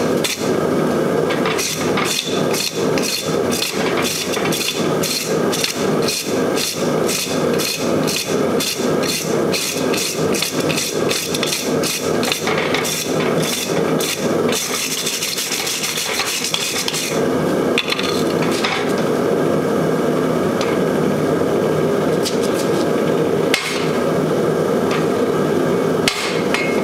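Hand hammer striking a red-hot 1 1/2-inch square steel bar on an anvil in a steady run of about two to three blows a second, which stops about halfway through. A steady rushing noise runs underneath, with a few seconds of high hissing after the blows end.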